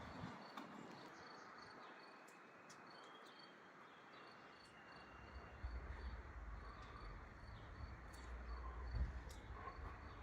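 Quiet outdoor ambience: an even hiss of light rain with faint, thin, high insect chirping and scattered ticks. A low rumble comes in about halfway through.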